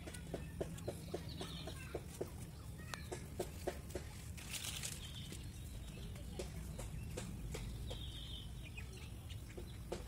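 Poultry calling in short repeated notes, with scattered sharp clicks and a couple of brief high-pitched bird calls.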